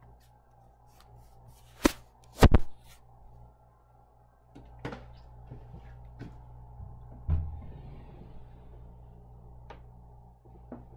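A wooden glass-paned door being handled and opened: two sharp latch clicks about two seconds in, the loudest sounds, then scattered softer knocks and a dull thump about seven seconds in.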